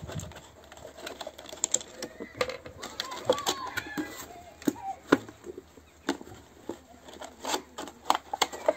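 Irregular clicks, taps and crinkles of a cut plastic bottle being handled and pressed against a wooden log slice.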